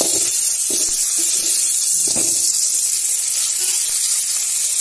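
A tomato frying in a little hot oil in an aluminium pan: a steady sizzling hiss.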